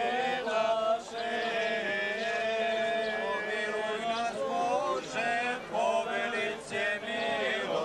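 Men's voices chanting an Orthodox liturgical hymn, with long held notes and slow melodic turns.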